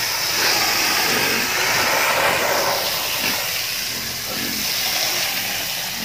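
Steady hiss of water spraying hard from a hose.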